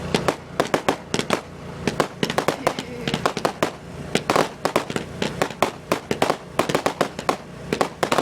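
Fireworks display: a rapid, unbroken run of sharp bangs and crackles, several every second.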